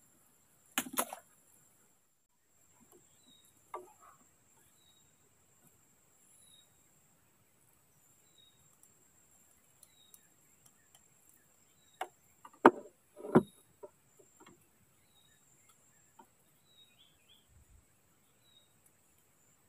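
A few sharp knocks and clunks of a fishing rod being handled in a wooden boat, the loudest two close together about two-thirds of the way through. Under them, a faint high chirp repeats about once a second over a steady high hiss.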